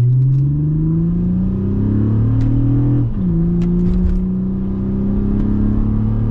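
Car engine heard from inside the cabin, rising in pitch as it accelerates. About three seconds in it drops sharply as it shifts up a gear, then runs on steadily.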